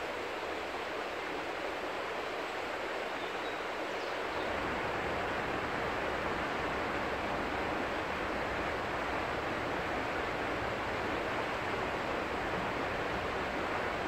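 Steady rush of flowing river water, the Six Mile Water. About four seconds in, a low rumble joins and the sound gets slightly louder.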